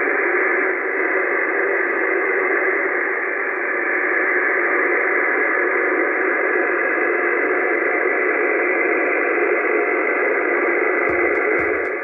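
Steady hiss of radio static, held within a narrow speaker-like band, cutting off abruptly at the end. Faint, evenly spaced ticks start about a second before it stops.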